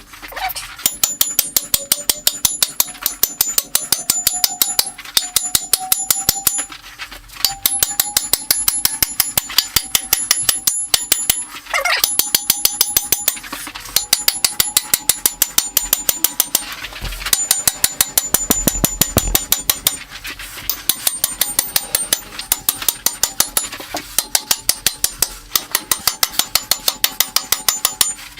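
Fast hammering with a small 2-pound cross peen hammer, driving spikes in to hold an anvil down on a wooden log. The blows come in runs of about four to five a second with short pauses between runs, and a ringing tone sounds through them.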